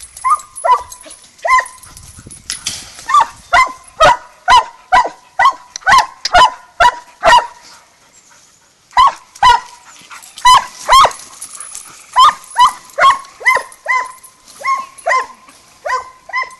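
Treeing Walker coonhound barking at a live raccoon she has bayed: short, sharp barks in a fast run of about two a second, with a pause of about a second near the middle before the barking resumes.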